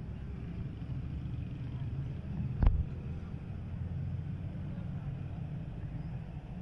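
Low, steady engine rumble, with a single sharp thump about two and a half seconds in.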